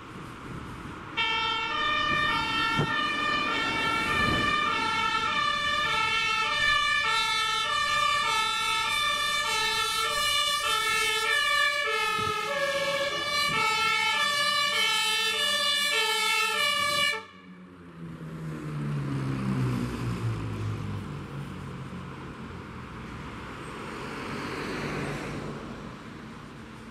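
German two-tone fire service siren (Martinhorn) on a passing fire vehicle, alternating steadily between two pitches from about a second in and cutting off abruptly around seventeen seconds in. After it, a heavy vehicle's engine runs with its pitch falling as it passes.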